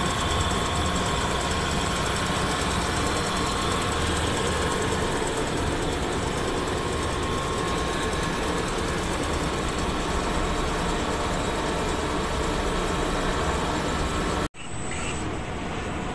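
CNC notching machine running steadily while it cuts teeth into a coil of steel saw-blade strip: a dense mechanical noise with a few steady whining tones over it. Near the end the sound cuts out abruptly, then a slightly quieter run of the same machine noise resumes.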